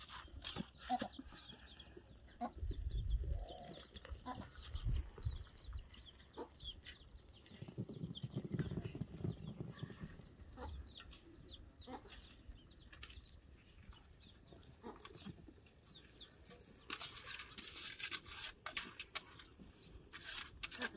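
Cooked rice scooped by hand from an aluminium bowl into a metal cooking pot: soft rustles, scattered clicks and light knocks of metal, with a denser rustling near the end. Farm animals call now and then in the background.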